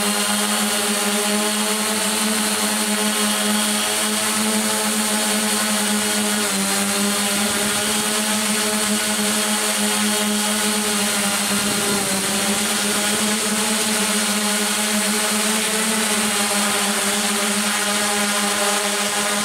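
Droidworx ADX-4 coaxial multirotor's motors and propellers humming steadily, heard through the camera on board. The pitch dips slightly and recovers a few times as the throttle changes.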